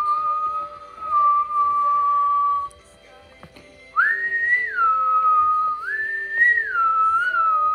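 A slow whistled tune: long held notes that slide up and down between a lower and a higher pitch, breaking off for about a second near the middle before picking up again.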